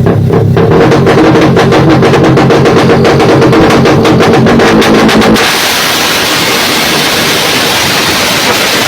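Electronic intro music with a steady beat, cutting off about five seconds in to a Honda RS150R's single-cylinder engine, fitted with dual throttle bodies, running with a dense, rough exhaust noise.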